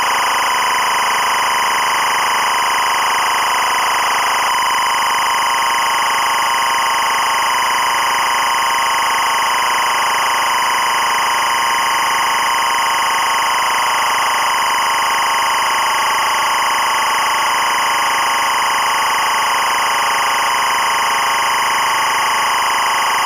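EBU linear timecode (LTC) audio signal at 25 frames per second: a loud, steady, buzzy tone with a strong pitch near 1 kHz and another near 2 kHz, unchanging in level. It is the data stream carrying the running hours-minutes-seconds-frames timecode count.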